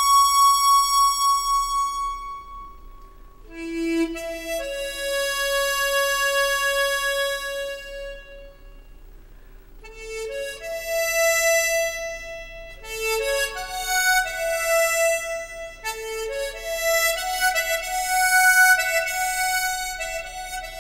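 Harmonica playing a slow melody: long held notes at first, a soft lull about eight seconds in, then quicker phrases of shorter notes.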